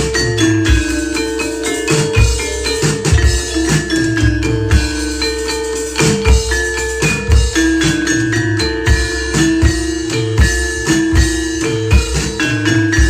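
Javanese gamelan music played through a sound system: metallophones ring held notes over a steady pattern of drum strokes, loud throughout.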